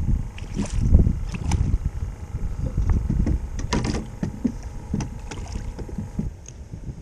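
Uneven low rumbling and buffeting with scattered knocks and clicks, the sort of handling and hull noise heard on a small boat, fading toward the end.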